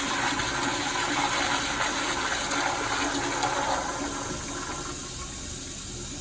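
Kohler Kingston 1.6 gpf toilet's long flush: rushing water that drops about four seconds in to quieter steady running water as the flush winds down.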